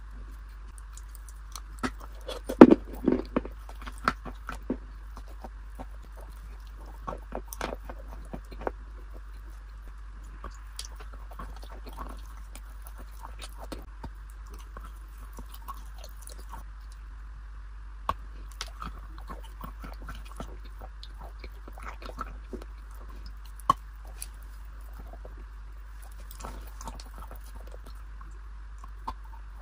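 Close-miked biting and chewing of a cream-coated food, with many sharp crackles and clicks, loudest in a cluster a few seconds in, then sparser. A steady low hum and hiss lie underneath.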